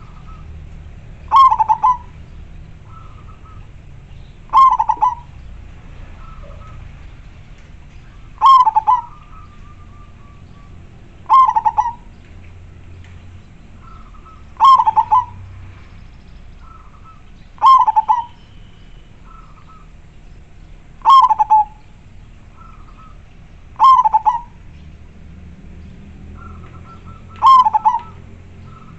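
Zebra dove (perkutut) cooing: a short, sharp-edged cooing phrase repeated about every three seconds, nine times over, with fainter, shorter calls between the phrases.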